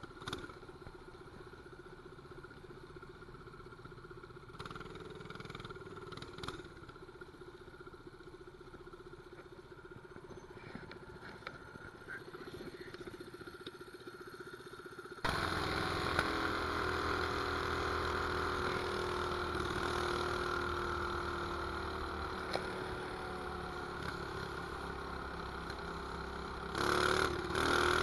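Mini bike's 212cc single-cylinder four-stroke engine running. It runs steady and fairly quiet at first, then about halfway through it jumps abruptly to a much louder run with a hiss across all pitches, and it surges briefly near the end.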